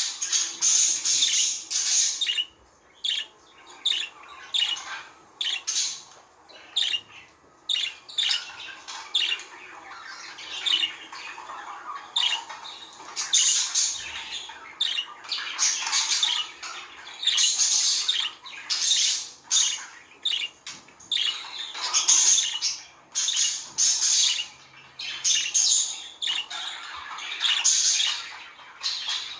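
Budgerigars (budgies) chirping and chattering: a constant run of quick, high warbles, squawks and clicks from one or more birds, broken only by brief pauses.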